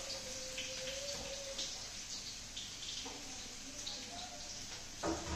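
Onions sizzling and crackling in hot oil in a kadai. There is a single sharp knock about five seconds in.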